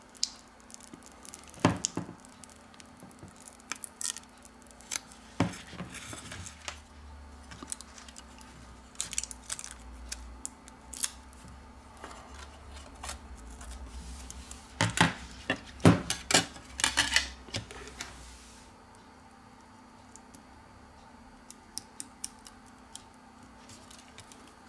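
Scattered sharp clicks and light taps of a smartphone's detached glass back cover and small metal tools being handled on a work mat, with a cluster of louder clicks about two-thirds of the way through and only faint ticks near the end.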